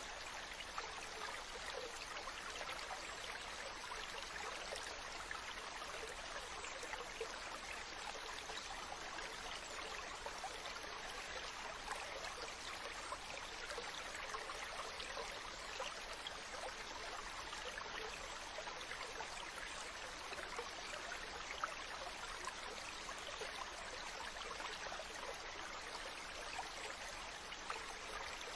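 Ocean water: a steady, even wash of water noise without distinct wave swells, with a few small ticks scattered through it.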